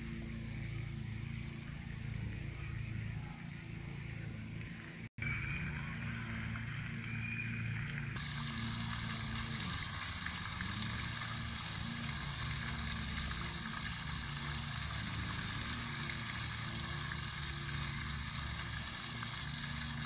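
Garden-pond fountain jet splashing into the water: a steady hiss of falling spray that comes in about eight seconds in, over a low steady hum.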